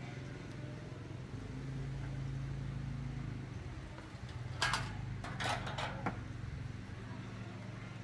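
An electric motor humming steadily, with a few short scraping clicks about halfway through.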